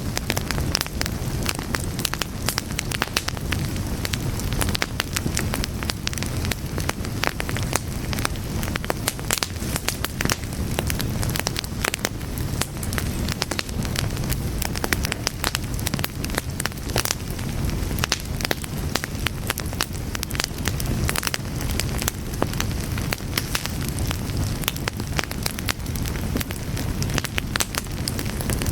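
Fire crackling steadily, with many irregular sharp pops and snaps over a low, continuous rumble of the flames.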